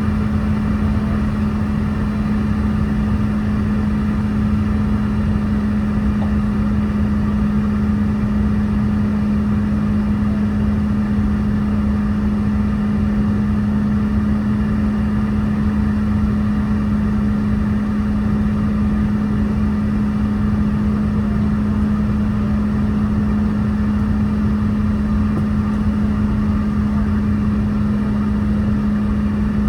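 Cabin noise inside a Boeing 717-200: its rear-mounted Rolls-Royce BR715 turbofan engines running steadily, a constant low hum over an even rush of air, with no rise in power.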